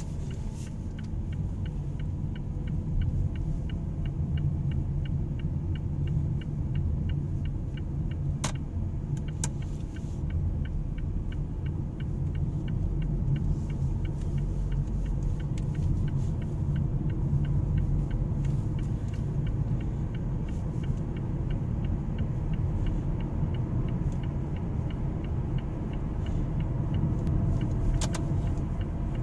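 Steady low rumble of road and engine noise inside the cabin of a Mazda sedan cruising at a constant speed, with a faint, even ticking throughout and a couple of light clicks.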